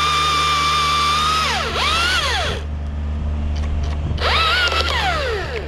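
Husqvarna T540iXP battery top-handle chainsaw whining at full speed, then released and spinning down about a second and a half in. The trigger is blipped twice more, each rev rising and falling away.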